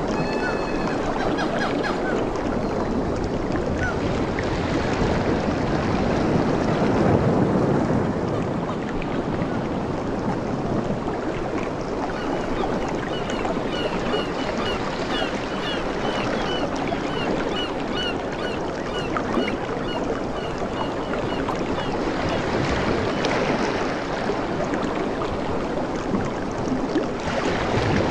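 Ocean waves washing in a steady rush, swelling about a quarter of the way through. A bird chirps repeatedly, about twice a second, through the middle of the stretch.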